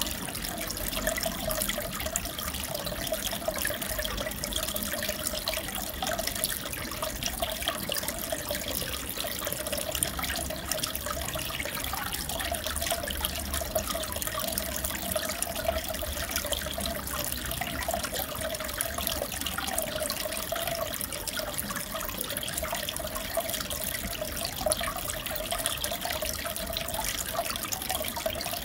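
Aquarium water trickling and bubbling steadily, a continuous crackle of small splashes over a wavering mid-pitched hum.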